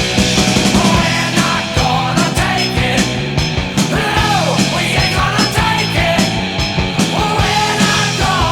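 Rock music with a driving beat, guitars and a singing voice.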